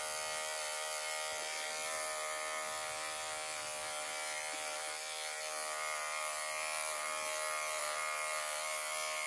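Electric dog grooming clipper running steadily, fitted with a #40 blade under a 1/8-inch (#5) comb, as it trims the belly and sanitary area of a terrier mix's coat. The motor hum and blade whine stay even throughout.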